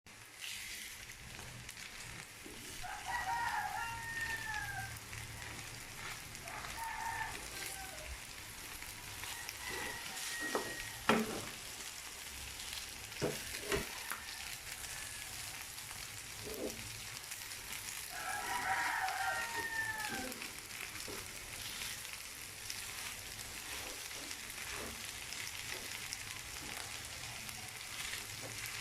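Garlic fried rice sizzling in a pan, with a few sharp knocks of a utensil against it about midway. A rooster crows a few times in the background.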